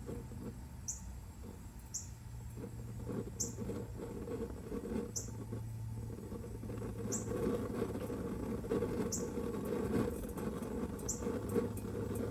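Low steady rushing of a lit propane smoker burner, stronger in the second half. Over it a short, high chirp repeats about every two seconds.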